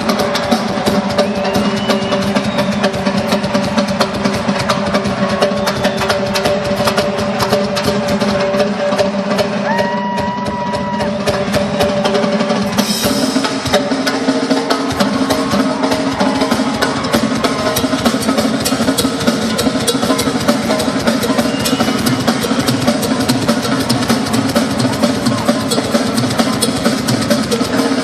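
Rock drum kit played live in a fast, busy pattern with rolls on snare and bass drum, over held notes from other instruments that change pitch about halfway through.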